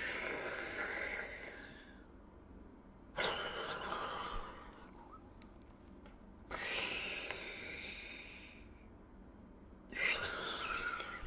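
A woman taking slow, deep breaths: four long rushes of air, each about two seconds, with short pauses between. This is a balloon-breathing warm-up that fills the lungs from the ribs before singing.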